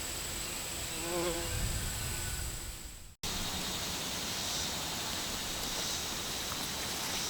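Insects droning steadily, with a short wavering call about a second in; the sound fades out and cuts about three seconds in, then the insect drone carries on.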